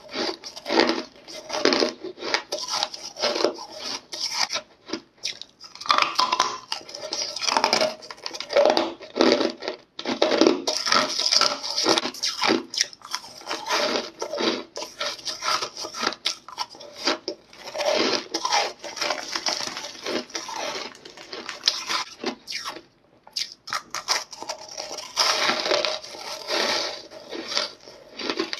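A person biting and chewing hard ice, giving loud, dense crunching in quick runs broken by short pauses, the longest a couple of seconds near the end.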